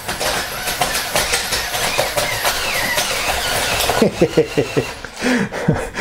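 Remote-control clamp-brick bulldozer (CADA C61056) running on its two L-motors: motor and gear whine with the tracks clattering over loose plastic bricks, the motors labouring under the model's weight. A quick run of sharper sounds comes about four seconds in.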